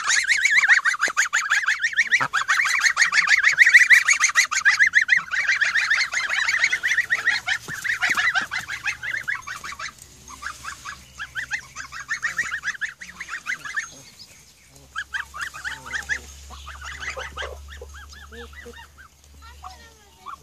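A group of white domestic geese honking close up, in a fast, dense string of calls for about the first ten seconds, then fewer and quieter honks.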